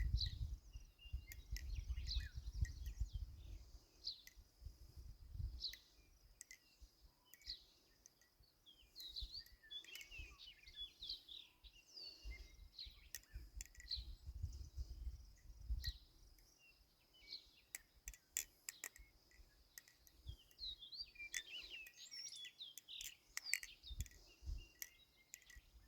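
Birds chirping and singing, with sharp clicks of a balisong's handles as it is flipped, clustering in the second half, and low rumbling puffs of heavy breathing on the microphone.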